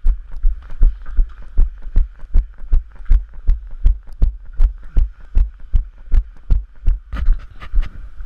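A runner's footfalls picked up by a head-mounted action camera: a regular beat of low thuds, about two and a half strides a second, over a steady faint hiss.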